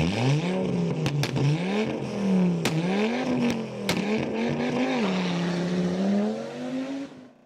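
A car engine revving, its pitch climbing and falling several times with a couple of quick sharp dips, along with a few sharp cracks. It fades out near the end.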